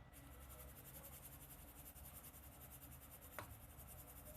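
Faint, rapid scratchy rustle of flour being sifted through a mesh sieve, with one light tick about three and a half seconds in.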